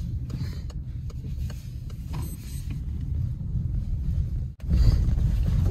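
Low, steady rumble of a car's road and engine noise heard from inside the cabin while driving. It cuts out for a moment about four and a half seconds in and comes back a little louder.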